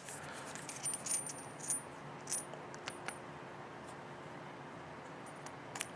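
Light metallic clicks and clinks, some with a brief high ring, from handling a just-opened tubular lock and its tubular lock pick; a handful of scattered clicks, most in the first half and one near the end.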